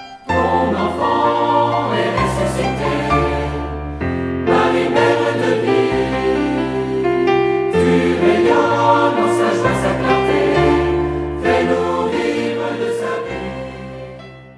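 Choral church music: a choir singing sustained chords over a slowly changing bass line, fading out near the end.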